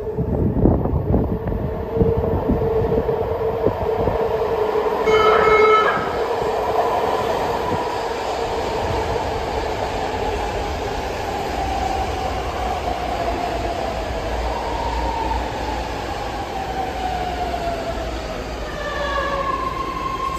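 BART Legacy Fleet train pulling into an underground station: wheels clattering over the rails, a short horn blast about five seconds in, then the propulsion whine falling steadily in pitch as the train brakes along the platform. A steady high tone sets in near the end.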